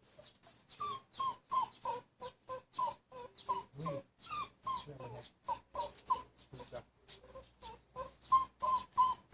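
A dog whimpering, repeating short high-pitched whines about two or three times a second.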